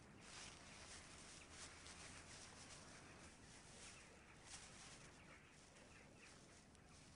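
Near silence: faint outdoor ambience with a few soft rustles.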